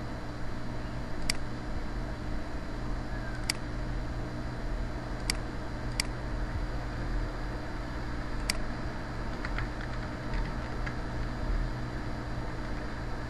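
Computer mouse clicking, five sharp single clicks a second or two apart, with a few fainter ticks later, over a steady background hum and hiss.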